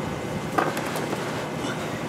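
A single light metallic knock about half a second in, followed by a few faint clicks, over a steady background hiss.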